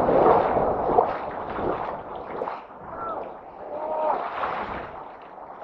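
A crowded school of small fish thrashing and splashing at the surface inside a fishing net, a dense splashing that is loudest in the first second and then dies down.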